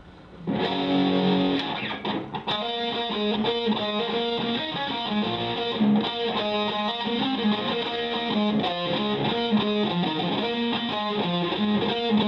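Electric guitar played through distortion with the delay pedal bypassed, a dry signal without repeats. A riff of picked notes starts about half a second in and goes on without a break.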